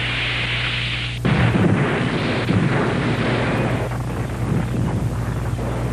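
Explosion sound effect: a hissing blast that about a second in gives way to a sudden, deep rumbling explosion with crackles, slowly dying away.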